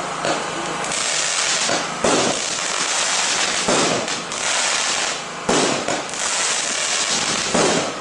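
Ardi Showbox Fascination consumer firework cake firing: four sharp reports about two seconds apart over a continuous crackling hiss of bursting effects.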